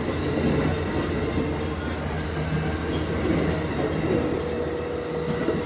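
Amtrak Northeast Regional's stainless-steel Amfleet passenger cars rolling past the platform: a steady rumble of wheels on rail, with brief high-pitched wheel squeals a few times.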